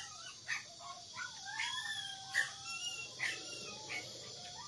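A dog whining and whimpering: thin, high whines that slide up and down and overlap, with several short sharp sounds between them.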